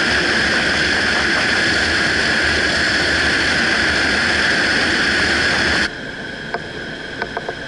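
Steady rushing airflow over a glider in flight, heard as wind on the tail-mounted camera's microphone, with a constant high whistle. About six seconds in it drops abruptly to a quieter level, followed by scattered faint clicks.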